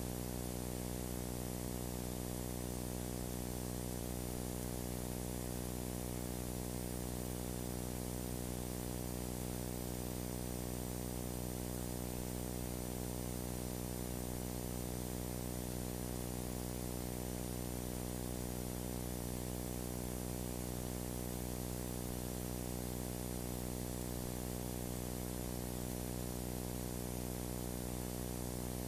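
Steady electrical hum with many even overtones under a constant hiss, unchanging throughout: mains hum and noise on a blank stretch of the recording.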